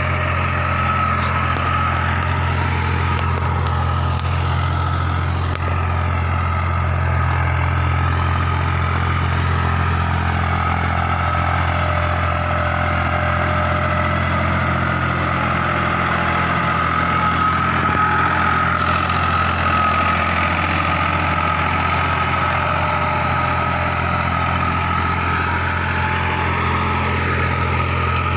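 New Holland diesel tractor engine running steadily under load while driving a rotavator through the soil, a constant low drone with a steady high whine over it. It holds one even note throughout.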